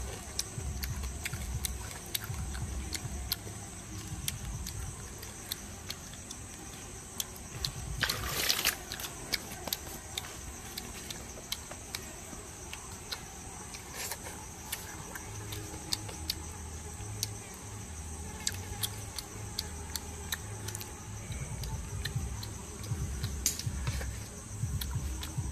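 Someone eating cooked fish by hand, with many small wet mouth clicks and smacks from chewing and a short louder noise about eight seconds in. Behind it runs a steady high buzz of forest insects.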